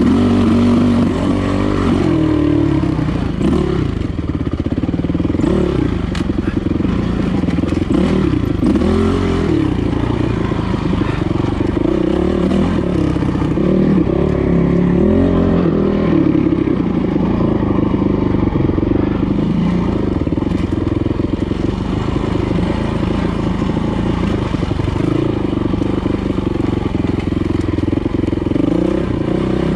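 Dirt bike engine running under constant throttle changes, its pitch rising and falling every second or two as it is ridden along technical singletrack.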